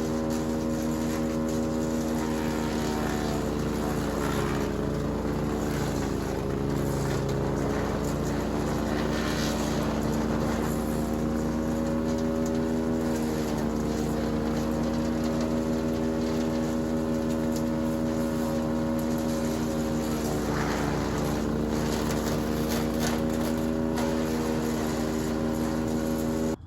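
Split-Fire 4090 wood chipper running at full speed and chipping brush, its engine note sagging briefly several times as branches are fed in and pulled through the blades.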